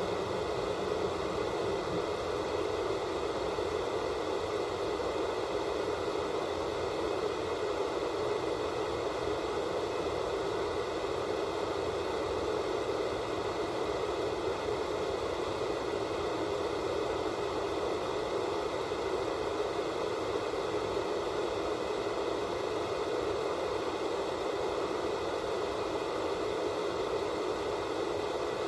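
Analog television static from a set receiving no signal: a steady, unchanging hiss, strongest in the middle of the range.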